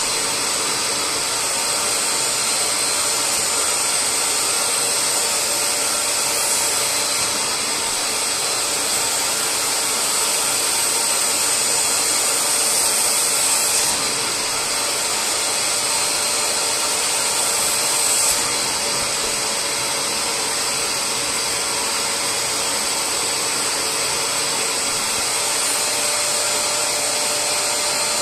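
Bissell SpotClean Pro spot cleaner's 750 W suction motor running steadily with a high whine as its hand tool extracts water from wet upholstery fabric. The suction sound shifts slightly a few times as the tool moves.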